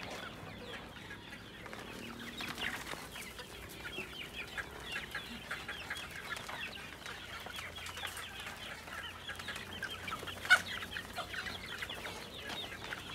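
A large flock of chickens clucking and chirping as they crowd and peck at scattered feed, many short calls overlapping throughout, with one brief sharp sound about ten and a half seconds in.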